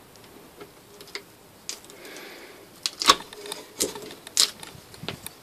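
A brass letterbox plate clicking and tapping against the door as it is worked free and lifted off: a handful of separate light clicks, the sharpest about halfway through.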